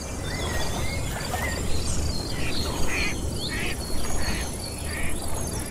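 Nature sound effect: whistled bird calls over a steady high-pitched insect buzz, then a duck quacking about six times in an even series, the whole cutting off suddenly at the end.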